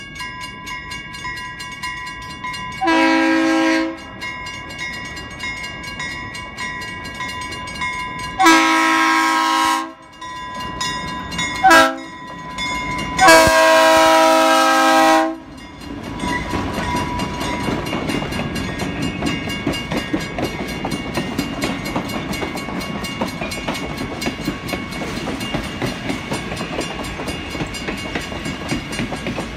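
Diesel locomotive's multi-chime air horn sounding long, long, short, long, the grade-crossing signal, as the train approaches. From about halfway through comes the steady rumble and wheel clatter of the locomotive and passenger cars rolling past.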